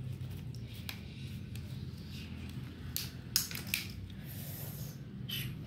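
Soft handling noises from paintbrushes being slid out of the elastic loops of their case and turned in the hand: a few light clicks and rustles, the sharpest about halfway through, over a low steady hum.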